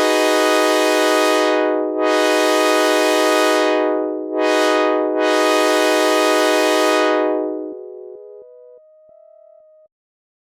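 Synthesizer imitating a commuter train's air horn chord, sounding four blasts in the long, long, short, long grade-crossing pattern over a steady held chord. Near the end the held notes drop out one by one.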